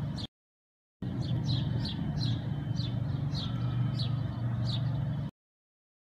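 A bird chirping over a steady low hum, with short falling chirps about twice a second. The sound cuts in and out abruptly, with two stretches separated by dead silence.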